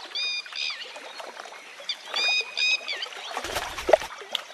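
High-pitched bird calls: clear whistled notes that hook downward at the end, coming in quick groups of two to four, over faint ticking. A short, louder knock comes near the end.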